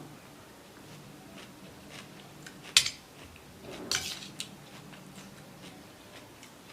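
Cutlery clinking and scraping against a plate while eating: a sharp clink nearly three seconds in, a longer rattle about a second later, and soft ticks between.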